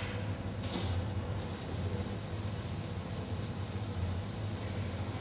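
Flour-dredged seitan slices frying in olive oil in a stainless steel pan: a steady sizzling hiss that turns brighter about a second and a half in, over a low steady hum.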